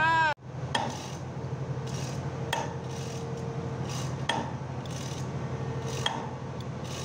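Metal chain of a hand-pulled chain hoist clinking as it is hauled, in separate clinks a second or two apart. A steady low machinery hum runs underneath.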